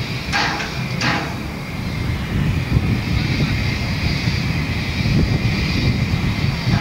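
Hv3 995 4-6-0 steam locomotive standing and simmering: a steady steam hiss over a low rumble, with two short puffs of steam in the first second.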